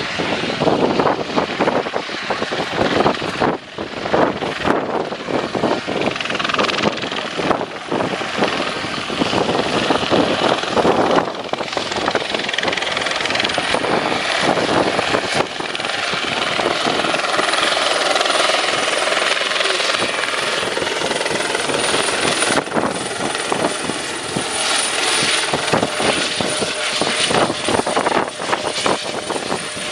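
Airbus Helicopters H120 Colibri in flight: the rapid chop of its main rotor under a high, steady whine from the single turboshaft engine and fenestron tail rotor, holding a fairly even loudness as it manoeuvres.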